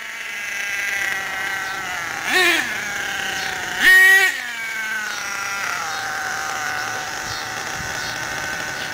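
HPI Savage X RC truck's F4.6 two-stroke nitro engine running during break-in, revving briefly twice, a short blip about two and a half seconds in and a louder one at about four seconds. Each time the pitch rises sharply and falls back to a steady lower note.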